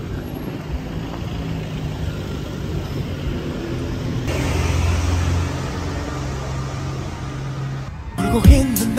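City street traffic: a steady low rumble of car and motor engines on the road, swelling a little about halfway through. Near the end a louder sound with wavering pitched tones cuts in.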